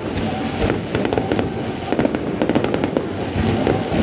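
Aerial fireworks going off in quick succession: a dense run of sharp bangs and crackles from bursting shells and streaking silver stars.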